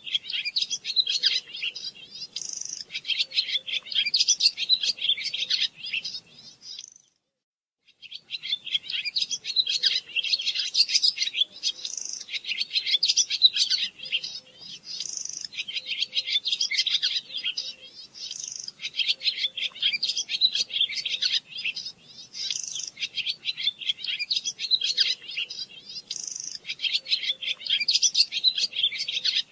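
A small songbird singing a long run of rapid, twittering chirps in phrases of a second or two, with a complete break of about a second near seven seconds in.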